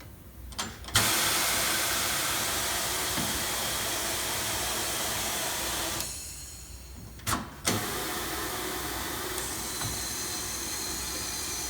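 Compressed air hissing through the pneumatic controls of a Coats 9010E rim-clamp tire changer as its air-operated parts are cycled. A loud hiss starts suddenly about a second in and lasts about five seconds, then two short clicks come, then a second hiss runs on to near the end.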